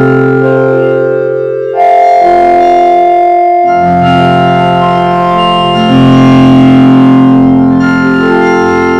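Loud cartoon audio turned by a 4ormulator vocoder effect into sustained organ-like chords that jump to a new chord every second or two, with a brief dip just before two seconds in and a louder chord from about six seconds in.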